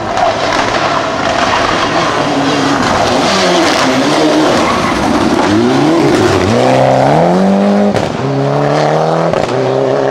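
Rally-spec Mitsubishi Lancer Evo IX with a turbocharged four-cylinder engine, driven hard through a tight bend. A noisy rush of engine and tyres comes first. Then the engine note climbs steeply under full acceleration, drops briefly about eight seconds in, and climbs again.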